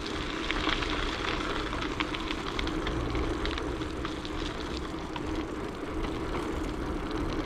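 A vehicle engine running steadily, with faint scattered clicks.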